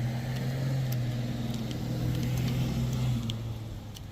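A vehicle engine running with a steady low hum that fades away a little after three seconds in, over a few light clicks of a wiper blade being slid onto its arm.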